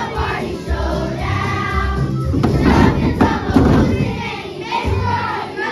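Children's choir singing over accompaniment music. About halfway through come a sharp thump and a second of noisy clatter.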